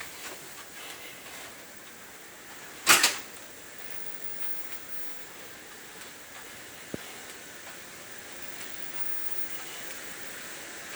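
A single loud sharp clack about three seconds in, with a faint click later, over a steady background hiss.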